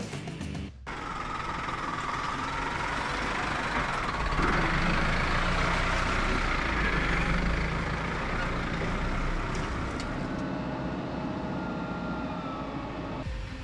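Off-road 4x4 truck driving slowly over a dirt track, with engine and tyre noise. It builds to its loudest in the middle as the truck passes close, then eases off.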